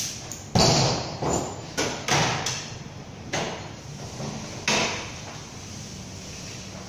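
Sharp knocks and clanks from tools and parts on a Toyota 2TR engine being dismantled. About seven irregular knocks come in the first five seconds, the loudest about half a second in.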